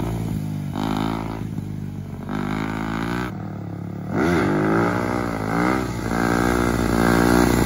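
Dirt bike engine revving up and down as the bike is ridden in a wheelie. It goes quieter for a couple of seconds, then rises sharply in pitch and falls again about four seconds in, and runs louder after that.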